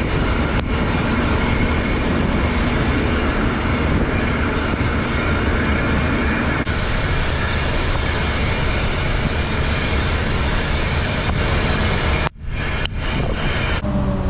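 Steady rush of water pouring over a spillway. It cuts out abruptly for a moment about twelve seconds in, then resumes.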